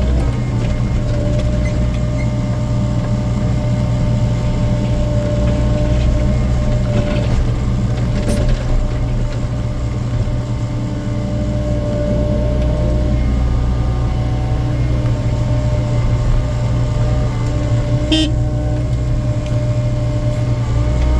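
Excavator's diesel engine running steadily under load with a steady hydraulic whine while loading concrete waste with the bucket, with a couple of short knocks about 8 and 18 seconds in.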